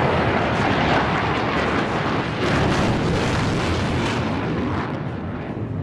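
Loud rushing jet noise from a twin-engine Sukhoi Flanker fighter flying a display pass, easing off over the last second or so.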